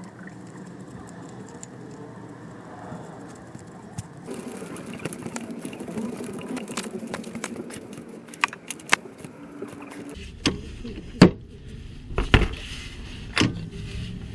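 Metal tools and a socket clinking and knocking while a new oil pressure sensor is threaded in and tightened by hand under a van's engine. Scattered sharp clicks start about halfway through, and several louder knocks come near the end.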